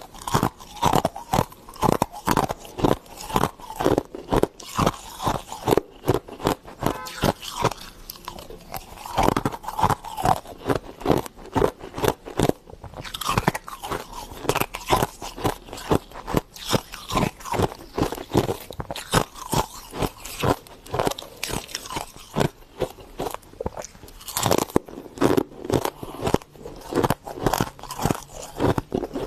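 Soft freezer frost being bitten and chewed close to the microphone: a continuous run of crisp crunches, several a second.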